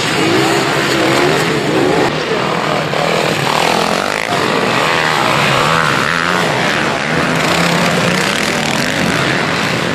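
A pack of motocross bikes racing, several engines revving at once and rising and falling in pitch over one another.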